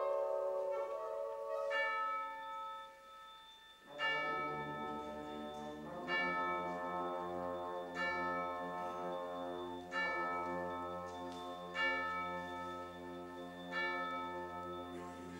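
A band's held chord dies away, then tubular bells toll slowly, one stroke about every two seconds, over a low sustained chord from the band, imitating a tolling church bell.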